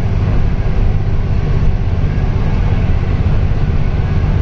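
Cabin noise of a TNSTC bus on the move: a steady, loud, low engine and road rumble.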